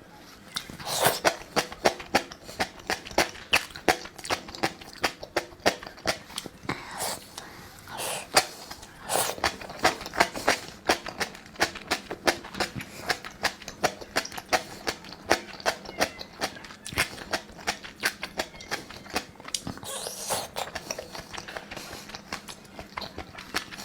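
A person chewing and biting food close to the microphone: a steady run of small wet mouth clicks and smacks, a few each second.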